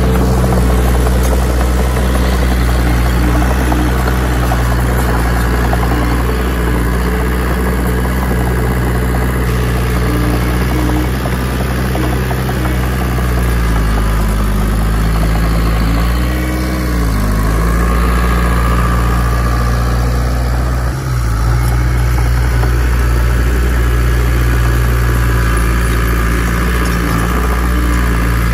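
Heavy diesel earthmoving engine running steadily under load, its speed sagging and then recovering about halfway through.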